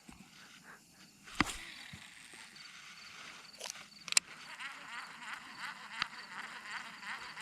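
Two sharp clicks, then from about halfway through a rapid run of repeated chirping animal calls, over faint steady insect trilling.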